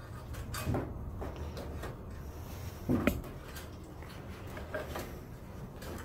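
Hands handling the front-panel switch leads and cables inside a steel PC case: light rustling with a few knocks against the case, the loudest about three seconds in.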